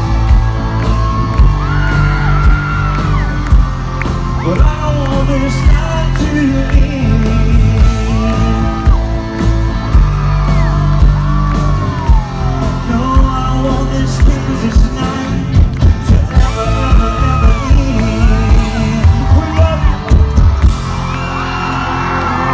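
Live country band playing loud through a concert PA, with pounding drums and a pitched melody line over them. About 21 seconds in the drums stop, leaving a held chord as the crowd starts to cheer.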